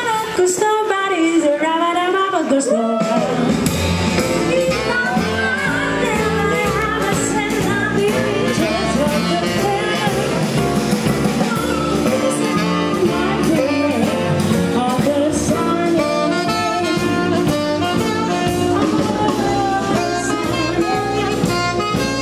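Live swing jazz: a small band with a female singer, piano, saxophone and drums. A lone gliding melody opens, and the full band with low bass notes comes in about three seconds in.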